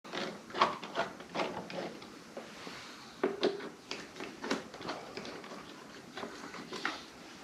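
Irregular clicks, knocks and clatter of hands handling tools and parts in a car's engine bay.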